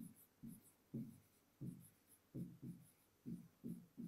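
A marker writing on a board, a faint run of about nine short strokes as a line of words is written.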